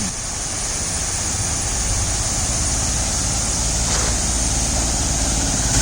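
Engine of an approaching auto-rickshaw running under a steady hiss, its low rumble growing gradually louder.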